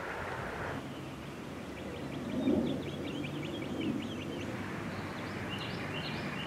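Streamside ambience: a steady hiss that cuts off about a second in, then a songbird singing a rapid trill of short high notes, and a few separate chirps near the end. A brief low rumble about two and a half seconds in is the loudest moment.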